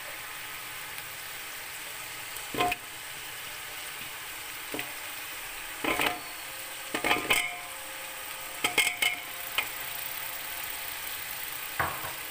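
Peas, tomatoes and spices sizzling in ghee in a steel pot, with a run of sharp knocks as chunks of raw potato are dropped in by hand, the knocks coming thickest from about six to nine seconds in.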